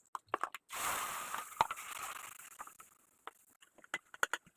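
Clinks and knocks of kitchen utensils, with a hissing rush starting about a second in that fades away over the next two seconds.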